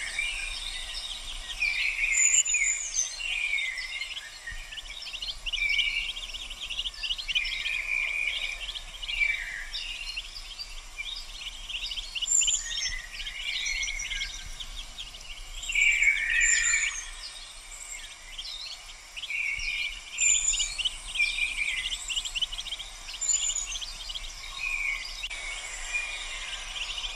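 Mallard ducklings peeping: short, high, falling peeps repeated every second or two, among quicker chirping trills.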